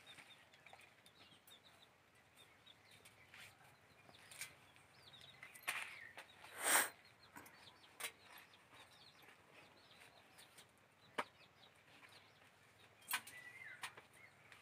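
Soft pats and clicks of hands pressing pumpkin dough onto a leaf over a metal bowl, with bangles on the wrist, as birds call in the background. A louder short sound comes about seven seconds in.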